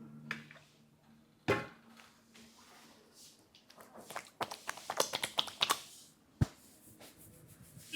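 Barber's hands massaging a customer's coconut-oiled head: one sharp slap about a second and a half in, a quick run of pats and rubbing strokes around the middle, and one sharp knock a little after.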